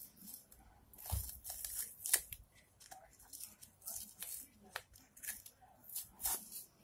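Silver masking tape being peeled off a freshly painted motorcycle cylinder head: a run of irregular crackling rips and sharp snaps, the loudest about two seconds in.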